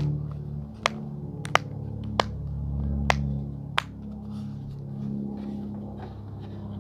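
About six sharp pops at uneven spacing over the first four seconds, typical of silicone pop-it fidget bubbles being pressed through, over low background music with long held notes.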